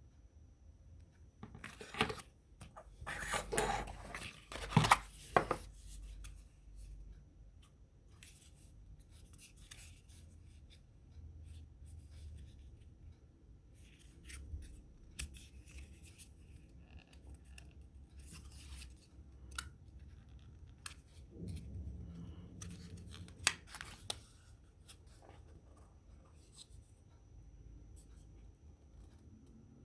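Handling of a smartphone and its packaging: a few seconds in, a stretch of rustling and scraping with sharp clicks, then scattered light taps and clicks, with one sharp click about three quarters of the way through.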